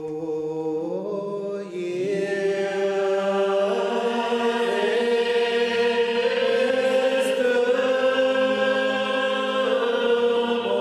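Gaelic psalm singing: a precentor's voice leads alone at first, and the congregation joins in about two seconds in. The singing is slow and unaccompanied, with long held notes that slide between pitches.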